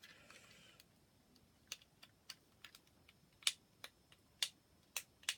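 Sharp plastic clicks at irregular intervals, about one or two a second, from a Dalek sound-effect toy figure being handled and its parts clicked.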